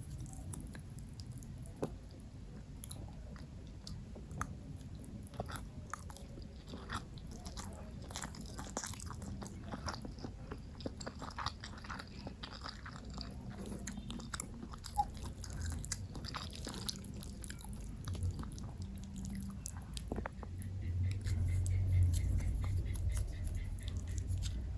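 Close-miked chewing and biting of food, with many small crunches and wet mouth clicks. A low rumble swells near the end.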